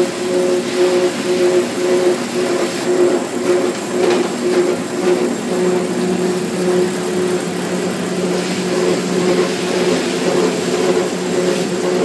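Grape destemmer-crusher running: its motor hums steadily with a constant pitch as the screw auger turns in the stainless hopper. Clusters of Marquette grapes are tipped in from a plastic lug.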